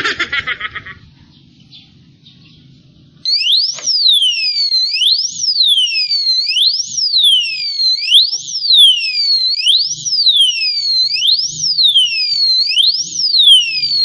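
Motorcycle disc-lock alarm going off: a quick burst of high beeps, then after a short pause a loud, piercing electronic siren that wails up and down in pitch a little more than once a second and doesn't stop. This is the lock's anti-theft alarm triggered, before it is switched off with the key.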